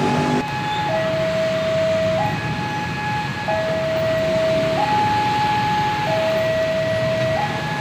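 Railway level-crossing warning alarm sounding a slow two-tone pattern, a higher and a lower note alternating about every second and a quarter, over the steady low hum of road traffic waiting at the crossing.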